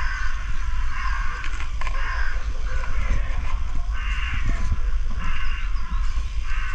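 A crow cawing over and over, about one harsh caw a second, over a steady low rumble.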